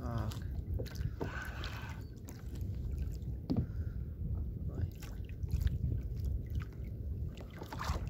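Wind rumbling on the microphone over water lapping at a plastic kayak at sea, with a few light knocks against the hull or rod.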